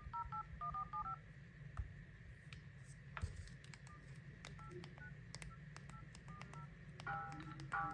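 Phone keypad touch tones: a quick run of short two-tone dialing beeps in the first second, then a few scattered beeps. Near the end a melodic phone ringtone starts.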